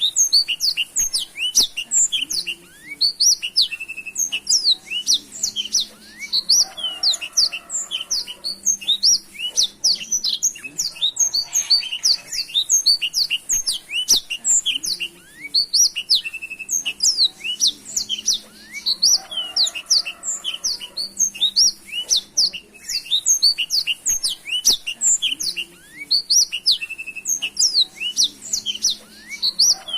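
Black-throated canary (blackthroat) singing energetically and without pause: a dense, continuous run of fast, high chirps, twitters and short sweeping notes.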